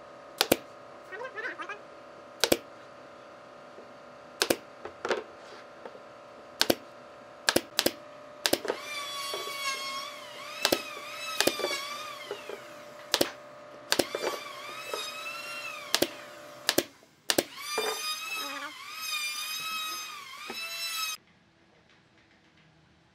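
Pneumatic brad nailer firing brads into a pine tabletop, about fifteen sharp single shots at irregular intervals of a second or two. A wavering high-pitched tone sounds behind the shots for part of the time, and everything stops abruptly near the end.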